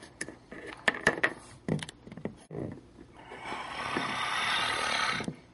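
Small clicks and taps of plastic toy figures being handled and set down on a tabletop. About three seconds in, a steady hiss swells up, lasts about two seconds and cuts off.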